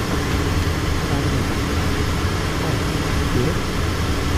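Steady cabin noise inside a Learjet in flight: a constant low hum from its rear-mounted jet engines blended with the rush of air over the airframe.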